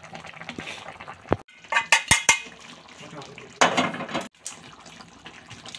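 Metal ladle clinking and scraping against a metal kadai of simmering chicken curry: a few sharp clinks about two seconds in, then a louder scrape of about half a second.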